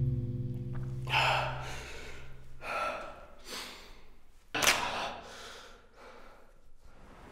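A man breathing hard in ragged gasps, four or five sharp breaths, the loudest a sudden gasp a little past halfway. A held music chord cuts off about a second in.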